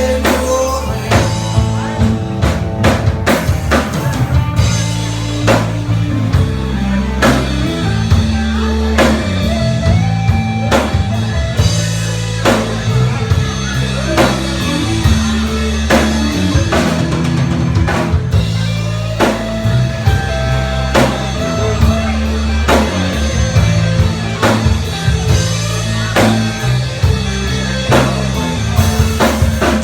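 Rock band playing an instrumental passage with no vocals: drum kit keeping a steady beat under bass and guitar.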